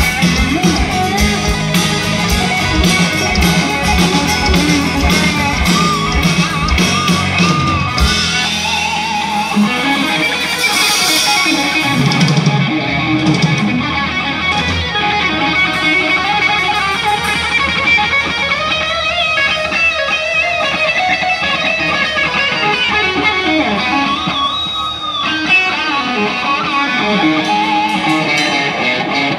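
Rock band playing live on amplified guitars with drums; about eight seconds in the drums and bass drop out and the guitars carry on alone, the electric guitar playing sustained, bending notes.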